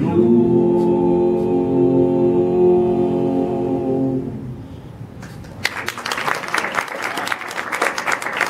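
Three men's voices hold the final chord of an a cappella French-Canadian folk ballad in harmony, fading out about four to five seconds in. Audience applause breaks out a moment later and carries on.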